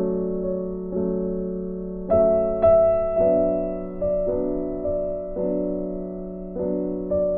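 Slow background piano music: soft chords struck about once a second, each ringing out and fading.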